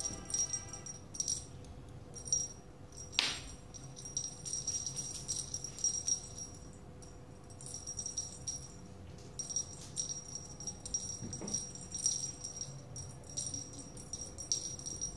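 Small jingle bell on a cat wand toy jingling in repeated short shakes as the wand is waved and batted by paws, with a couple of sharp knocks.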